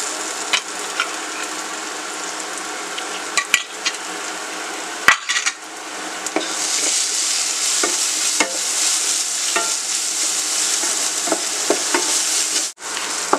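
Onions, ginger, garlic and ground spices frying and sizzling in ghee in a nonstick kadai, stirred with a spatula that scrapes and clicks against the pan. There are a few sharper knocks of utensils about three and a half and five seconds in, and the sizzle grows louder from about six seconds in.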